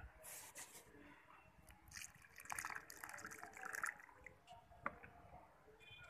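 Water poured from a container into a small terracotta pot of freshly sown soil, splashing and trickling in irregular spells as the pot fills and bubbles. A single click about five seconds in.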